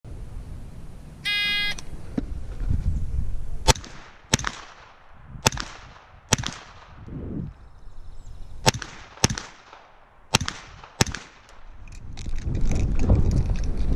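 Electronic shot-timer start beep, then eight gunshots fired in four pairs, each pair well under a second apart, at the targets of a practical shooting stage. A low noise builds near the end.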